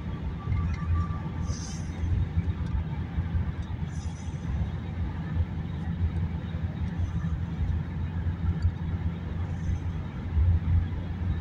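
Road and engine noise of a moving car heard from inside the cabin, a steady low rumble with a few brief hissing swells.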